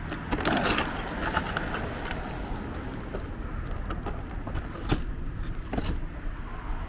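A vehicle engine running steadily with a low rumble, with a few short knocks and clatters over it.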